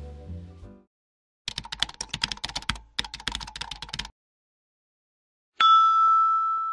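The tail of background music fades out, then rapid computer-keyboard typing clicks run for about two and a half seconds with a brief break in the middle. Near the end a single bright ding sounds and rings on, louder than the typing.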